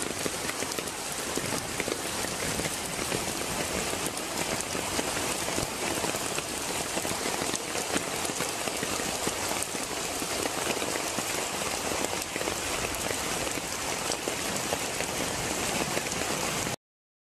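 Heavy rain and floodwater pouring through a gate make a steady, dense hiss of water. It cuts off suddenly near the end.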